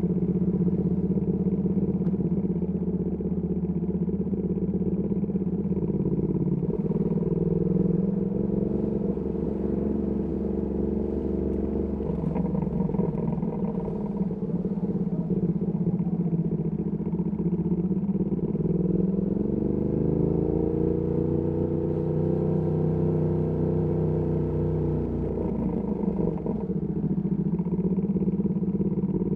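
Ducati Panigale V2S V-twin through a Termignoni exhaust, running at low city speed, then rising in pitch as it accelerates about two-thirds in, holding briefly and easing off again near the end.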